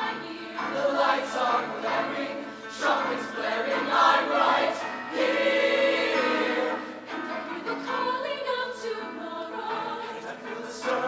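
Mixed-voice show choir of male and female singers singing in harmony, holding a loud sustained chord about five seconds in before moving on.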